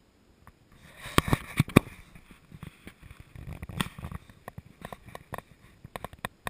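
Close handling noise of gear right by the microphone: rustling with a run of sharp clicks and knocks, the loudest three coming just over a second in and another near four seconds, then scattered lighter ticks.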